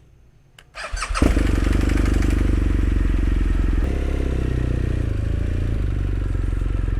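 Motorcycle engine started about a second in, catching at once and then idling steadily; the idle note shifts slightly about four seconds in.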